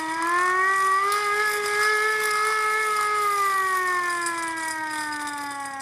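Hand-cranked air raid siren wailing: its pitch climbs through the first second as it is cranked up, holds steady for about two seconds, then slowly falls as it winds down.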